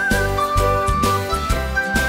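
Upbeat background music: a high melody with vibrato, whistle-like, over a steady beat and bass.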